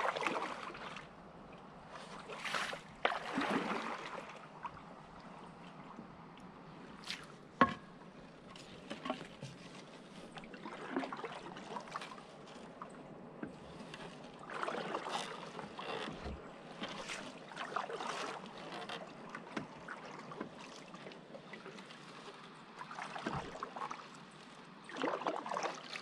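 Canoe paddling: irregular swishes and splashes of paddle strokes in the water, with one sharp knock about seven and a half seconds in.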